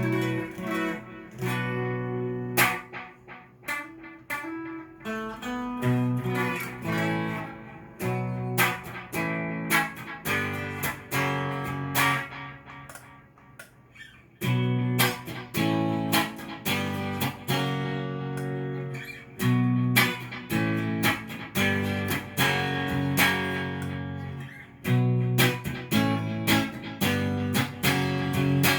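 Cort S series electric guitar played clean through a Fender amplifier: strummed and picked chords that ring out, with short breaks between phrases.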